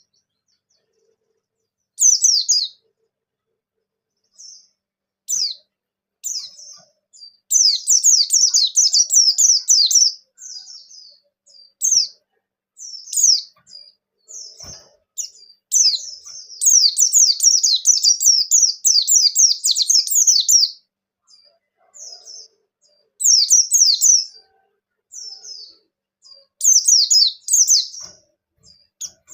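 Pleci (white-eye) singing in quick, high twittering phrases. Short bursts alternate with two longer runs of rapid trilled notes, one about a third of the way in and one past the middle.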